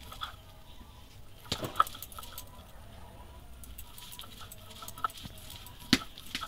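Soaked red lentils being ground coarsely by hand, a grinding stone rubbed and knocked against a wooden board: soft scraping with a few sharp knocks, the loudest about two seconds in and again near the end.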